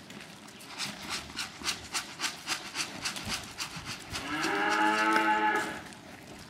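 A heifer moos once, about four seconds in: one long call that rises at first and then holds for about a second and a half. Before it comes a quick run of crunching steps on gravel, about three or four a second.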